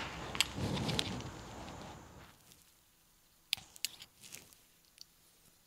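Faint hand-handling sounds of a U-cup seal being pressed into a steel hydraulic cylinder gland: a soft rustle that fades out over the first two seconds, then a few light clicks and taps.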